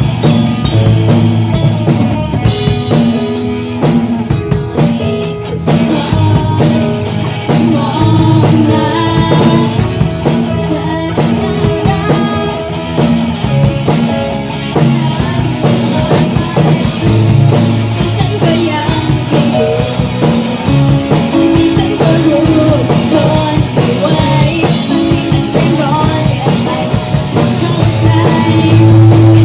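Live rock band playing, with a drum kit beating steadily under amplified instruments.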